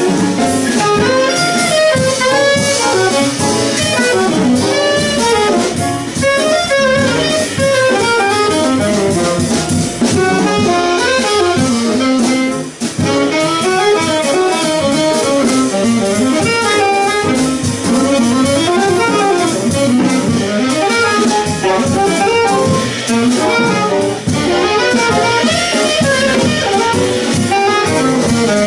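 Small jazz band playing live: a saxophone carries a flowing melodic line over piano, upright bass and drum kit.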